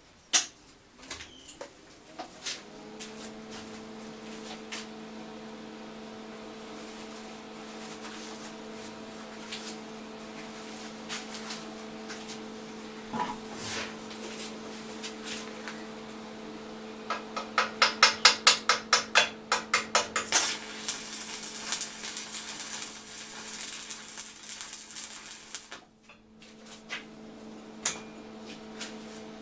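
A steady electrical hum, most likely an electric welding machine switched on, starts a few seconds in and runs under scattered metal clinks. Later comes a fast, even run of loud clicks, then a few seconds of crackling hiss that cuts off sharply.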